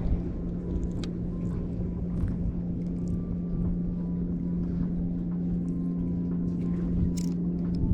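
Steady low drone of a boat engine running, one unchanging hum with a rumble beneath it, and a few faint clicks over it.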